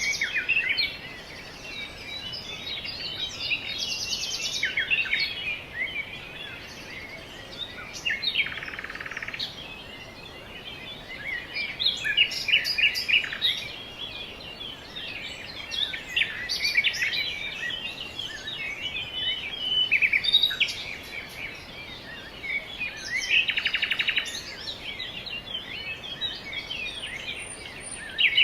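Many small songbirds chirping and twittering in a dense, overlapping chorus of short calls, with a short buzzy rattle about a third of the way in and another past three-quarters of the way through.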